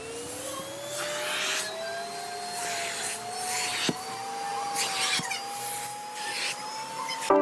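Vacuum cleaner washing fabric sofa upholstery: the motor's whine rises steadily in pitch, and the nozzle is drawn over the fabric in repeated strokes, each a rush of suction noise.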